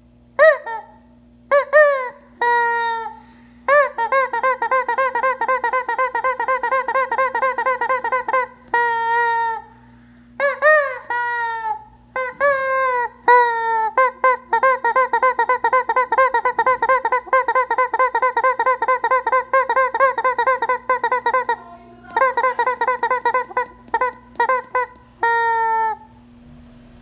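Squeeze-toy rubber chicken squawking in front of a running electric fan: a string of short rising-and-falling squawks and several long held squawks lasting a few seconds, all chopped into a rapid warble by the fan blades. The fan motor's steady hum runs underneath.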